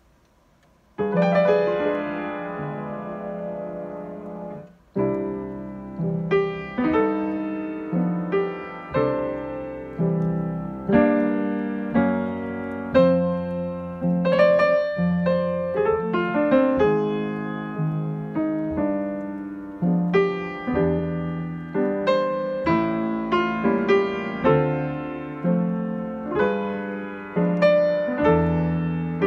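Yamaha grand piano played with both hands, a slow melodic piece. A chord struck about a second in rings and dies away, then the playing goes on in separate notes and chords, roughly one or two a second.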